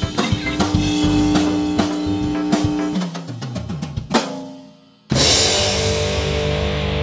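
Band music: a drum kit plays a steady beat with guitar, breaks into a quick fill about three seconds in, and drops out almost to nothing. About five seconds in, a loud sustained distorted electric guitar chord crashes in and holds.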